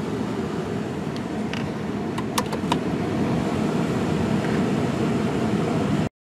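Steady low rumbling noise with a few sharp clicks a little past two seconds in, then it cuts off suddenly.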